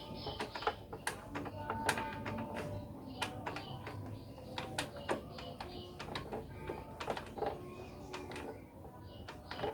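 Scattered light metallic clicks and taps, irregular and without any running-engine rhythm, as a motorcycle engine with its valve cover off is eased round by the kick-starter to set the timing mark for a tappet adjustment.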